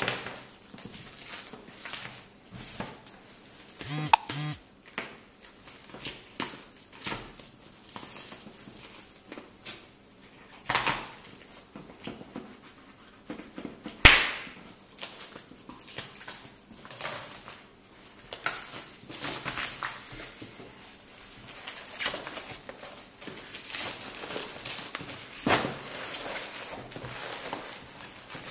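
Black plastic wrapping and packing tape being torn and crinkled by hand as a parcel is unwrapped: irregular rustles, rips and knocks, with one sharp crack about halfway through. Near the end a cardboard box is handled on a table.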